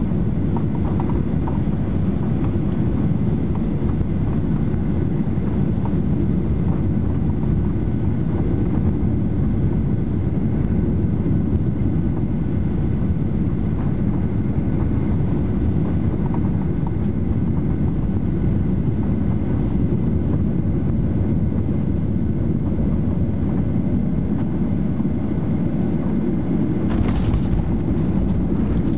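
Cabin noise of a Boeing 737-800 on final approach: the steady low rumble of the CFM56 engines and airflow, with a faint steady whine above it. Near the end, a brief jolt as the main wheels touch down on the runway.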